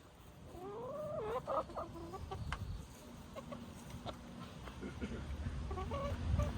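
Domestic hens vocalizing: one drawn-out, rising-and-falling call about half a second in, then a few softer clucks near the end.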